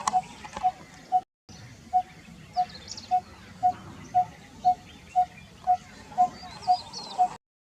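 Coppersmith barbet calling its repeated hollow "tuk" note, about two evenly spaced notes a second on one steady pitch. Other small birds chirp faintly behind it, and the recording cuts out briefly twice.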